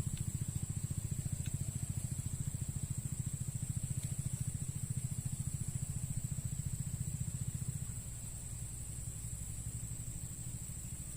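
A small engine running steadily, a low, rapidly pulsing throb that drops in level about eight seconds in, with a steady high-pitched hum above it.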